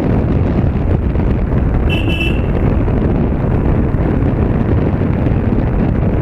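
Motorcycle riding at low speed, its engine running under a steady rush of wind on the microphone. A short horn beep sounds once about two seconds in.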